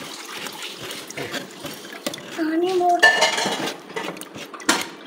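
Metal spoon scraping and clinking against a stainless steel mesh strainer while fruit pulp is pressed through it, with a louder metallic clatter about three seconds in.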